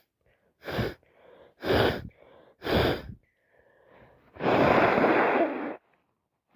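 A woman with a heavy head cold sneezes three times, about a second apart, then blows her nose hard into a tissue for over a second.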